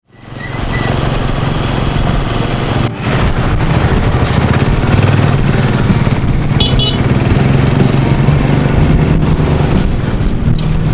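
A vehicle engine running steadily at close range, with two short high chirps about two-thirds of the way through.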